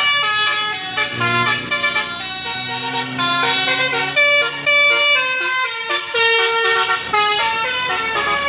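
Bus telolet musical air horn (Basuri) playing a quick tune of short stepped notes, several tones sounding together.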